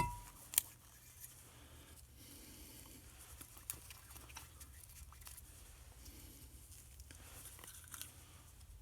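A sharp metal clink with a brief ringing tone right at the start, a second click just after, then faint small clicks and rustling from engine parts being handled and lubed.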